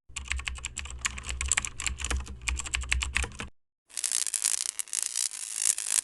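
Rapid typing on a computer keyboard, a quick run of key clicks that breaks off about three and a half seconds in, then a second, denser burst of typing.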